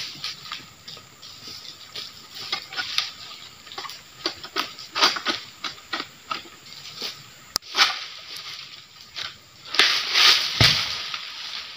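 Dry oil palm fronds crackling and rustling in irregular bursts as they are worked with an egrek, a long-poled harvesting sickle. A heavy thud comes about ten and a half seconds in.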